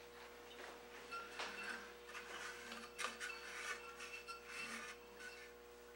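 Chalk rubbing against the turning surface of an ambrosia maple vessel on a lathe as rings are drawn around it: a series of faint, irregular scratchy strokes over a steady faint hum.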